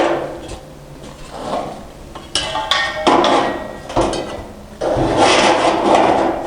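Handling noise from fitting the rubber gas hose and butane regulator: a sharp knock at the start, then two stretches of rubbing and scraping, the second lasting about a second and a half near the end.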